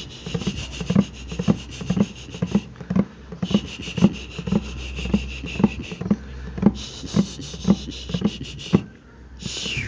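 Rhythmic soft tapping and rubbing, about three strokes a second, under a hiss that comes and goes in stretches of a few seconds. A short falling whistle-like glide comes near the end.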